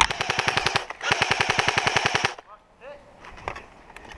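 Airsoft rifle firing two fully automatic bursts, a short one and then a longer one after a brief pause, at about fifteen shots a second.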